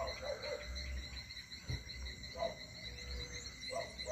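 A steady, high-pitched insect chorus of trilling crickets, with a few short, lower calls from another animal breaking in.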